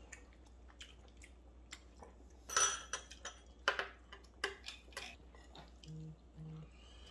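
Metal chopsticks clicking and tapping against a ceramic platter and a small sauce dish, with a few sharp taps and the loudest a longer scrape about two and a half seconds in. Two short low hums near the end.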